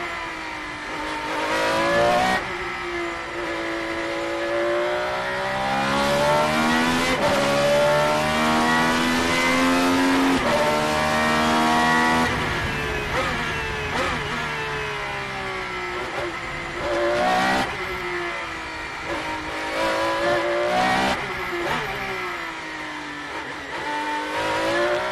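Ferrari 333SP's 4.0-litre naturally aspirated V12, heard from on board at racing speed. The pitch climbs as the car accelerates and drops sharply at each gear change, several times over.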